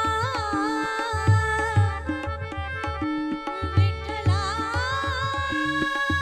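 Marathi devotional abhang performed live: a woman sings gliding, ornamented phrases over sustained harmonium chords, while a tabla keeps a steady rhythm with deep bass strokes.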